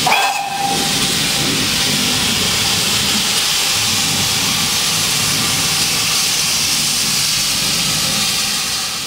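GWR 5700 class pannier tank locomotive 3738 venting steam with a steady, loud hiss from its open cylinder drain cocks as it moves off, with a brief tone right at the start.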